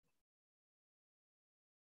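Near silence: the audio drops to dead digital silence.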